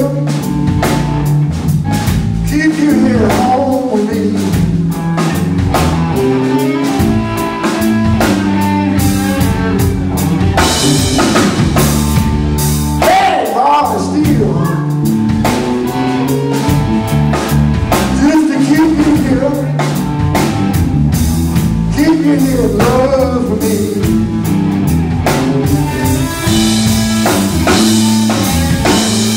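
Live blues band playing: electric guitars over a drum kit, with a steady low line underneath and lead notes that bend up and down in pitch.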